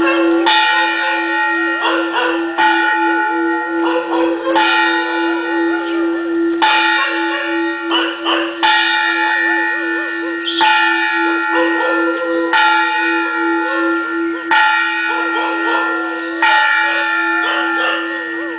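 Temple bell struck about once every two seconds, each stroke ringing on into the next. Dogs howl along to the bell between strokes.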